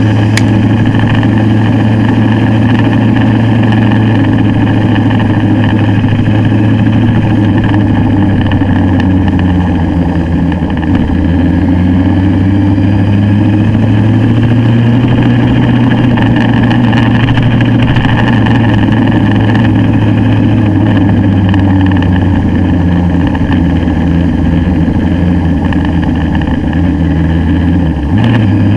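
Motorcycle engine running steadily under way, heard close up from the bike's own handlebar-mounted camera.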